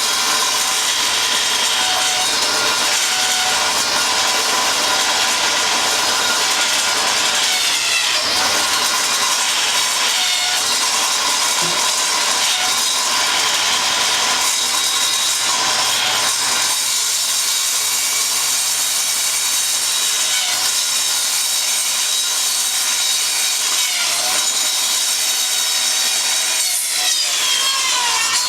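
Table saw ripping a sheet of 3/4-inch MDF lengthwise: the blade runs steadily under load with a whine that dips in pitch briefly several times as the board is fed.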